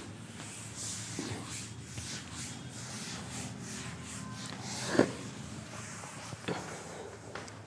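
Whiteboard eraser wiping across the board in quick repeated strokes, then a single thump about five seconds in and a lighter knock a little later.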